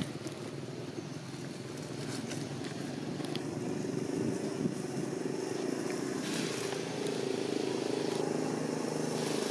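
A motor engine running steadily, with a low even hum that grows gradually louder.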